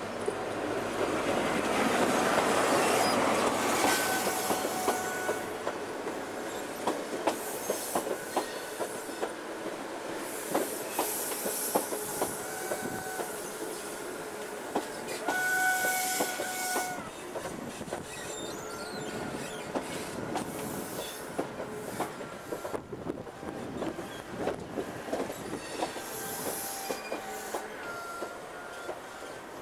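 InterCity 125 (HST) slowing into its terminus. The diesel power car passes loudly in the first few seconds, then the Mark 3 coaches roll slowly by with their wheels clicking over rail joints. Short high brake squeals come every few seconds.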